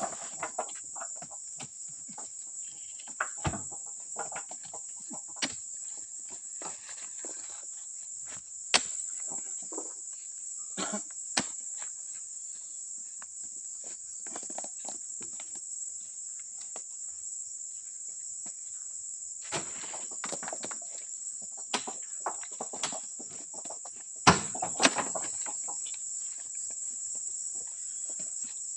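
Steady high-pitched chorus of insects, with scattered knocks and thuds from oil palm fruit bunches being speared on a pole and swung up onto a truck load. The loudest knocks come about 9 s in and as a pair about 24 s in.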